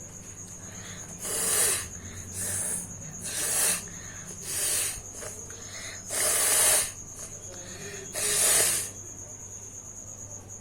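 A person blowing their nose hard, six forceful blasts of air through the nose, each a hissing rush about half a second to a second long, a second or two apart.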